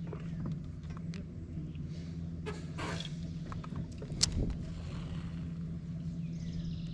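Steady low hum of an electric trolling motor, with scattered light clicks and a sharper knock about four seconds in.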